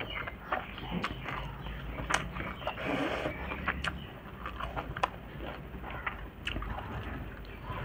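Eating by hand from a steel plate: fingers mixing rice against the metal, with scattered small clicks and taps and chewing.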